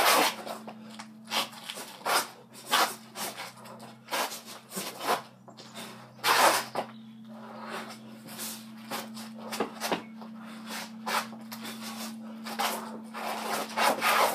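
Irregular series of thuds and slaps, about one every half-second to a second with a few heavier ones, typical of punches and kicks landing on a heavy punching bag, over a steady low hum.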